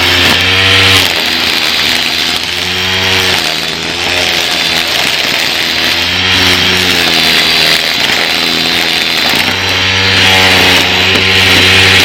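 Craftsman cordless electric string trimmer running and cutting long grass, a steady whirring hiss with a motor hum whose pitch sags and recovers again and again as the line bites into the grass.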